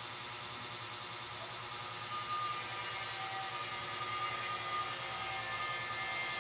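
Cooling fan of an HP EliteBook 830 G5 laptop spinning up at power-on: a steady whoosh that grows louder from about two seconds in. It is the sign that the machine is starting after the battery was refitted.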